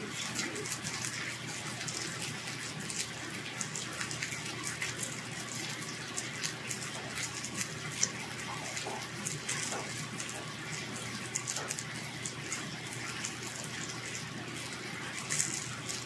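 Pork belly and garlic sizzling on a hot grill plate: a steady hiss with scattered light crackles.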